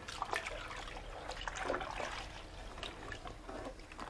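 Water trickling and dripping, with scattered small clicks and knocks.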